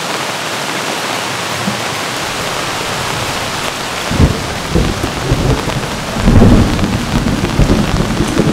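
Steady heavy rain, with deep rumbles of thunder about four seconds in and again, louder, a little past six seconds.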